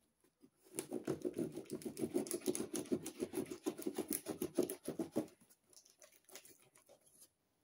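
Scratching and scraping at the packing tape on a cardboard box, a fast run of scratches starting about a second in and stopping after about five seconds, then a few faint scrapes.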